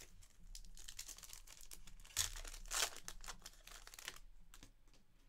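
Foil wrapper of a trading-card pack being torn open and crinkled in the hands, a run of crackling rustles with the loudest tears a little after two seconds in.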